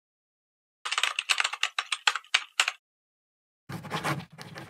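A quick run of about a dozen light clicks, close together like keystrokes, lasting about two seconds. Music with a steady beat starts near the end.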